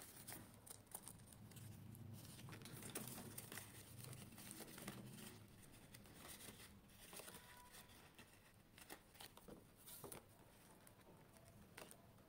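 Faint crinkling and rustling of clear plastic binder pouches and paper banknotes being handled and turned, with scattered soft clicks.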